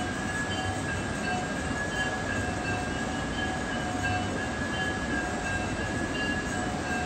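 Temple bells ringing continuously for the evening aarti: a steady, dense ringing with a high tone held throughout and shorter ringing notes coming and going.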